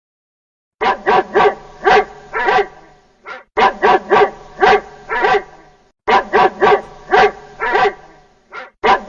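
A dog barking in three runs of about five sharp barks each, with a fourth run starting near the end.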